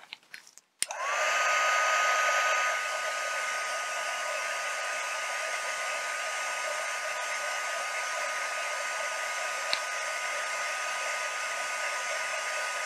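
Embossing heat tool clicked on about a second in, its fan whine rising as it spins up, then running steadily with a blowing hiss, louder for the first couple of seconds. It is heating a shrink-plastic leaf to soften it for shaping.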